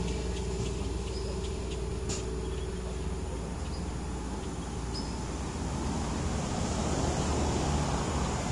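A steady low engine-like hum, with a few faint clicks and short high chirps in the first half; a rushing noise swells in the second half.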